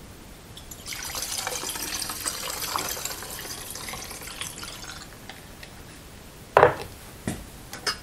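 Spirit poured from a plastic jug through a stainless steel funnel into a glass trial jar, a steady trickle lasting about four seconds. A few knocks follow near the end, the loudest first.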